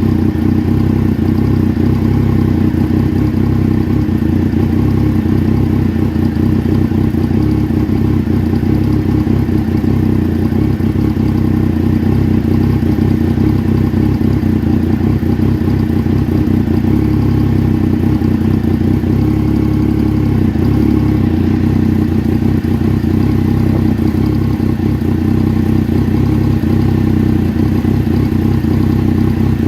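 Engine idling steadily with an uneven, rough-running idle.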